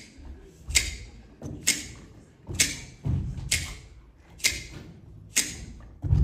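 Sparse break in a dance backing track: single sharp percussive hits about once a second, each ringing away into quiet, with none of the full music playing between them.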